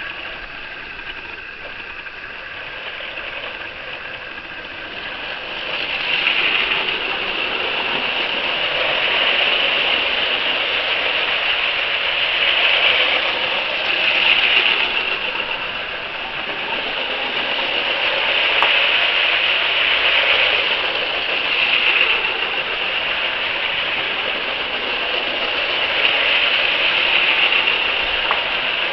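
Two Lego City 60051 toy trains running on plastic track, their battery-powered electric motors whirring and wheels rattling. The sound grows louder about six seconds in and then swells and fades every few seconds as the trains pass close by.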